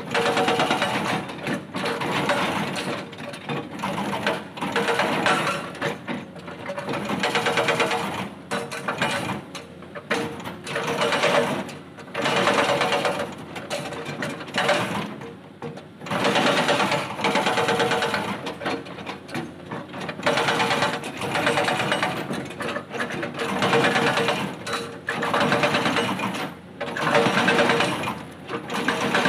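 Excavator-mounted hydraulic rock breaker on a Cat 320D hammering its chisel into boulders: short runs of rapid blows that stop and start every second or two as the rock is broken.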